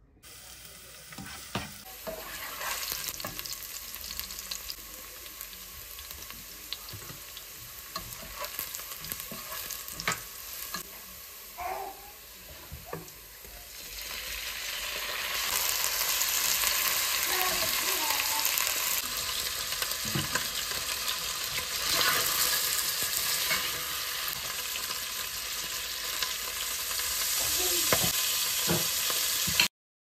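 Onions and chicken pieces sizzling in hot oil in a nonstick pot, stirred with a plastic spatula that scrapes and taps against the pot. The sizzle grows clearly louder about halfway through and stops abruptly just before the end.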